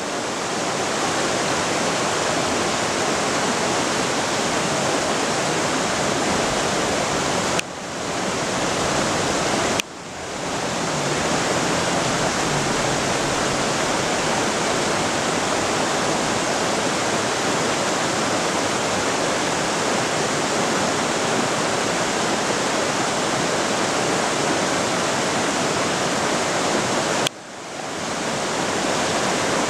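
Fast-flowing mountain river rushing over stones: a loud, steady rush of water. It drops out suddenly three times and swells back within a second or two.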